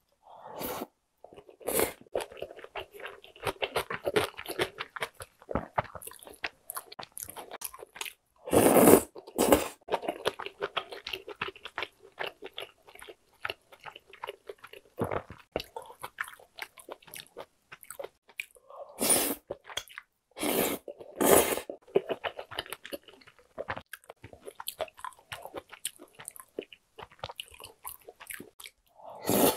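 Chewing and biting of spicy tteokbokki, the chewy rice cakes and bunmoja, in a steady irregular run of mouth and food sounds. A few louder sharp sounds come about nine seconds in and again around twenty seconds in.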